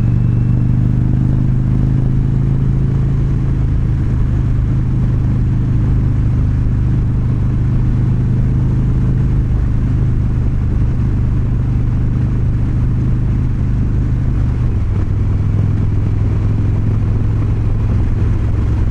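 Indian Chieftain Dark Horse's Thunderstroke 116 air-cooled V-twin running steadily at cruising speed. Its note drops slightly about three-quarters of the way through.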